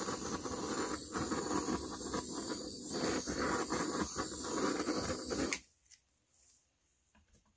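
Handheld gas torch flame hissing steadily as it is passed over wet acrylic pour paint, heating the surface so cells rise. The hiss cuts off suddenly about five and a half seconds in, when the torch is shut off.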